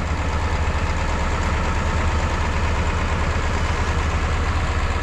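Vehicle engine idling steadily, a low, even running sound with a faint steady whine above it.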